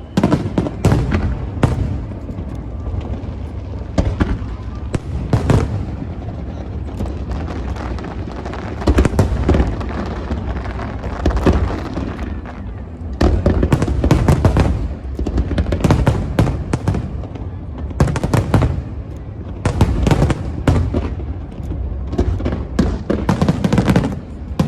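Aerial fireworks display: continuous booms and crackling bangs, packed into rapid volleys several times.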